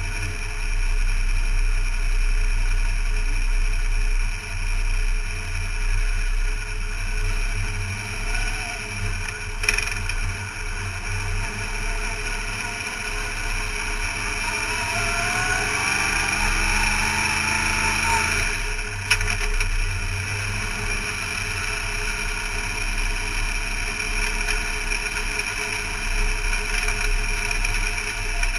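Race car engine heard from inside the cockpit, running steadily at low revs while the car rolls slowly. Its pitch climbs for a few seconds around the middle, then settles back to a steady drone.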